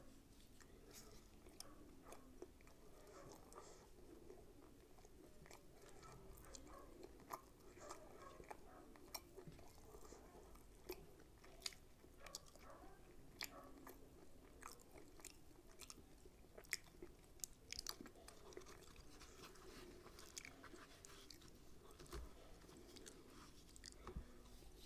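Faint, close-up chewing of mutton tikia wrapped in rumali roti, with many small sharp mouth clicks and smacks spread through.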